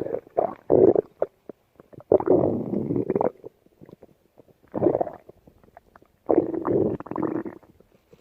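Stomach growling in irregular rumbling bursts, some brief and some over a second long, with short quiet gaps between.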